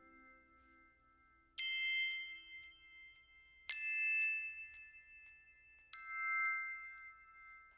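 Quiet background music: three bell-like chime notes struck about two seconds apart, each ringing on and slowly fading.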